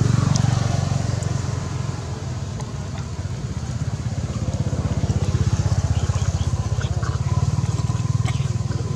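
A small engine running steadily, a low hum with an even fast throb that swells a little and eases again.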